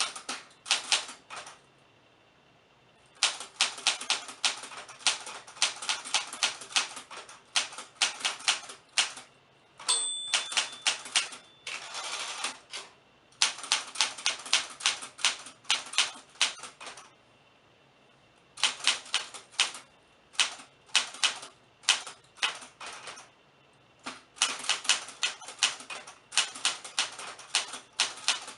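Typewriter keys striking in quick runs of several strokes, broken by short pauses of about a second. A brief ringing tone sounds about ten seconds in.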